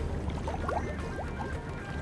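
Film score music: sustained high notes over a low drone, with a few quick rising swoops about half a second to a second in.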